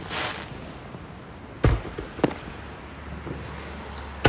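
Aerial fireworks shells bursting. A sharp bang comes about a second and a half in, a smaller bang half a second later, and another bang at the very end.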